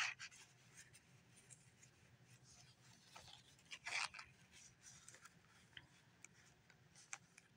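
Trading cards being slid into the plastic pocket pages of a card binder: faint, brief scrapes and plastic rustles a second or more apart, the clearest just at the start and about four seconds in.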